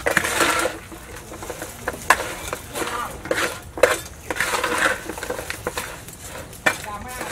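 Irregular clinks and knocks of pots, dishes and metal utensils being handled.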